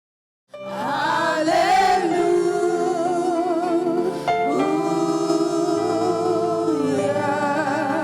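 Gospel music with wavering, vibrato-laden singing over instrumental backing, starting suddenly about half a second in.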